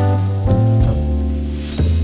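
Background music: an instrumental track with bass, drums and sustained pitched notes.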